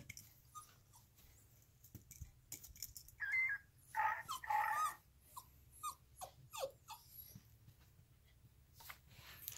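Alaskan Klee Kai giving short whining yips during play: a cluster of three pitched calls about three to five seconds in, then a few brief falling yips, with faint scattered clicks.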